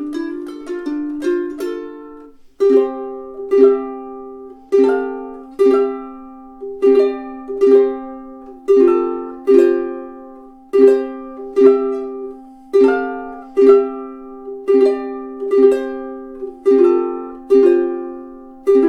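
aNueNue US-200 Moon Bird soprano ukulele played solo: a couple of seconds of quick picked notes, then chords struck about once a second and left to ring and fade, ending on a chord ringing out.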